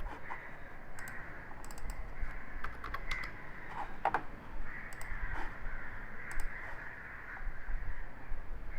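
Scattered computer mouse clicks and keyboard key presses at irregular intervals, over a steady low background hiss.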